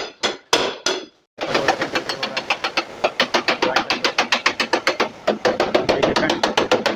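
A few sharp hammer blows on sheet metal, then from about a second and a half in, background music with a fast, even beat.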